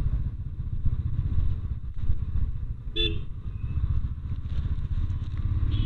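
A steady low rumble of wind buffeting the action camera's external mic, with motorcycle and traffic noise, while riding. A vehicle horn gives one short toot about three seconds in.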